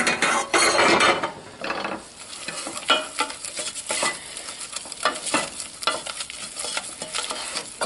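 A wooden spoon stirring and scraping a hot butter-and-flour roux in a stainless steel saucepan, in irregular strokes, loudest about a second in.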